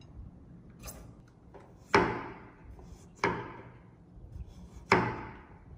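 A knife chopping down hard onto a wooden cutting board: three heavy strikes, each ringing briefly, about a second and a half apart, with a few lighter knocks between them.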